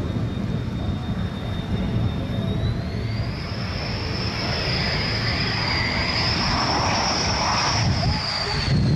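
Dassault Rafale's twin Snecma M88 turbofans whining over a low rumble as the jet comes in to land. The whine shifts higher about three seconds in and drops in pitch near the end as the jet passes.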